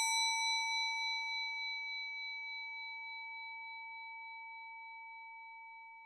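A single bell-like chime ringing out and slowly fading away, with a clear high, metallic ring.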